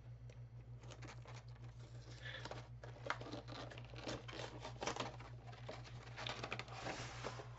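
Plastic wrapping on a Pokémon trading-card box being torn and crumpled open: irregular crinkling and crackling that gets busier about two seconds in. A steady low hum runs underneath.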